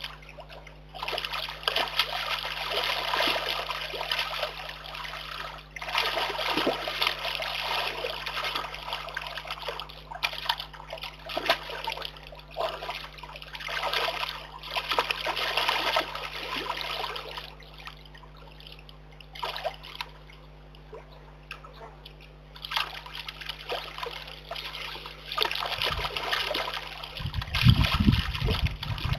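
Brown bear cub splashing and thrashing in a shallow muddy pool, the water sloshing in bouts with a quieter lull in the middle. Near the end come heavier, deeper sloshes as it churns the water.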